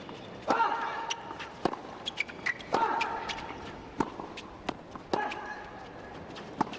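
Tennis rally on a hard court: a string of sharp ball strikes and bounces, about one every half second to a second, with a short pitched sound after several of them.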